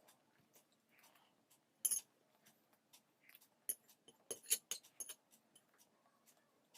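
Eating sounds over a plate of poha: scattered light clicks and clinks, with a sharp clatter about two seconds in and a run of louder clinks from about three and a half to five seconds.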